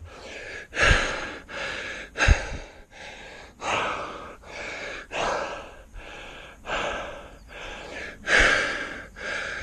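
A cyclist's heavy, laboured breathing under hard effort on a steep climb: loud gasping breaths in quick succession, about one every three-quarters of a second.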